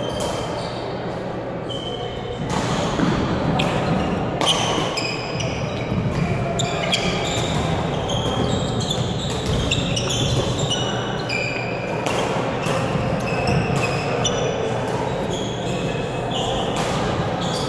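Badminton rally: racket strikes on the shuttlecock and sneakers squeaking on a wooden gym floor, echoing in a large hall. The hits begin about two and a half seconds in.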